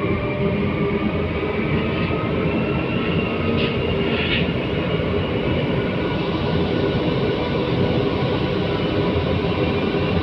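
Metro Manila MRT Line 3 train car running on its elevated track, heard from inside: a steady rumble with faint steady tones, and brief higher-pitched sounds about two and four seconds in.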